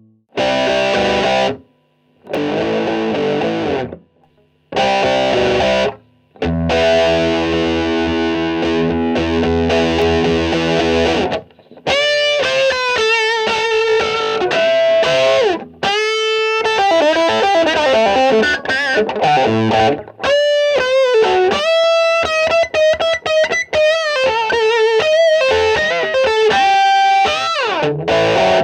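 Distorted electric guitar heard through a Mother WAI 2950 three-band EQ, a Siemens W295 reissue. It plays three short chord stabs and a long held chord, then, about twelve seconds in, a single-note lead line with string bends and vibrato.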